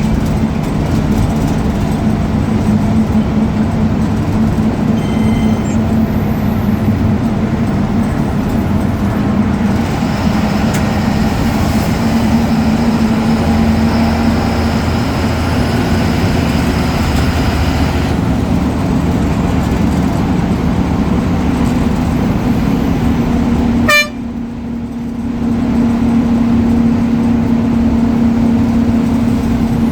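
Ashok Leyland BS4 bus diesel engine running with a steady hum. A thin, high turbo whistle comes in for several seconds in the middle. A sharp click comes about three-quarters of the way through, and the engine dips quieter for a moment before coming back up.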